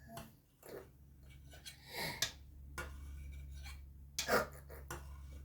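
Kitchen containers and utensils being handled: a few light knocks and brief rubbing or rustling sounds, the loudest a little over four seconds in. A low steady hum comes in about two seconds in.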